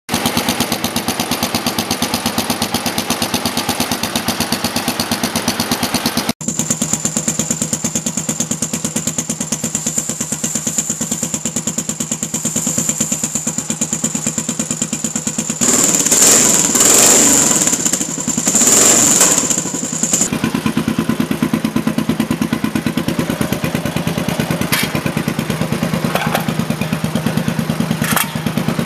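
Suzuki DR Big 800 motorcycle's big single-cylinder engine idling through its exhaust with an even, pulsing beat. About halfway through the throttle is blipped twice, then it settles back to idle. There is a short break in the sound about six seconds in.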